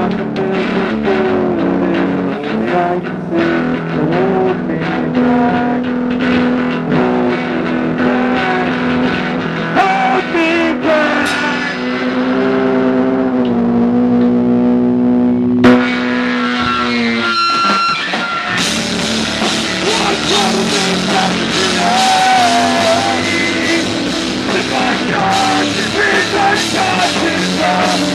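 Live rock band playing an instrumental passage, guitar and bass notes over drums. About fifteen seconds in the music breaks off sharply, then the full band comes back in louder with crashing cymbals.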